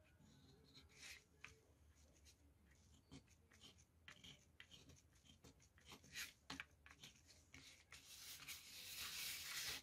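Faint scratching and light ticks of a pen tip drawn over a paper napkin glued onto a thin aluminium sheet, marking out the design. The scratching grows steadier and louder in the last two seconds.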